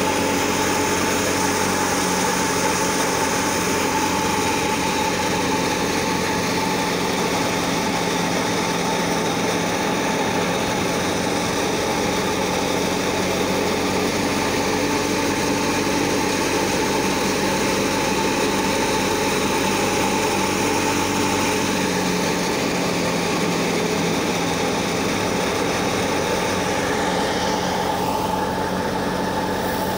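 Wheat thresher running steadily, a constant mechanical drone with a steady hum under a broad rushing hiss as it processes the straw. Near the end the higher hiss drops off slightly.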